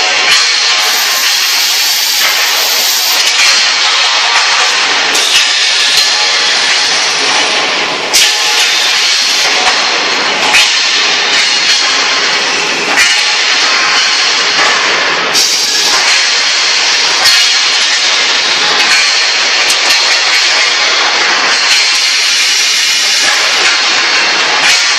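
Steady loud din of a steel tube mill and automatic tube bundling line running, with sharp metallic clanks every few seconds as the steel tubes are handled.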